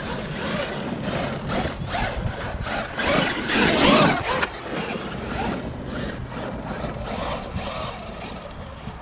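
Traxxas UDR radio-controlled truck running on a 6S battery over hard, stony ground. Its motor and tyres swell to their loudest for about a second and a half near the middle.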